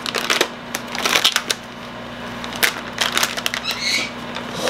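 Resealable plastic bag of chopped walnuts crinkling and clicking as it is opened and handled. Near the end, nut pieces pour out of the bag into a plastic measuring cup with a short rattling rustle.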